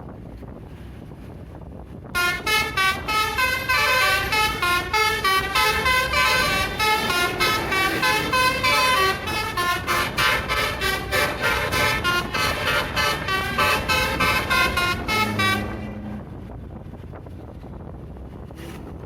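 Basuri telolet horn on a tour bus playing a fast melody of short horn notes, stepping up and down in pitch, starting about two seconds in and cutting off after about thirteen seconds. A low vehicle rumble underlies it.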